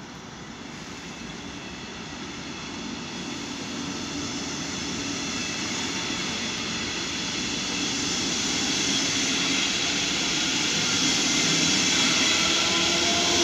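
Double-deck regional passenger train rolling past, growing steadily louder as the locomotive pushing it from the rear draws near, with a high whine coming up in the second half.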